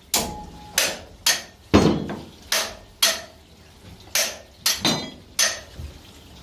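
Hammer striking metal at the base of a marine diesel engine: about ten sharp, ringing blows at an uneven pace of roughly two a second.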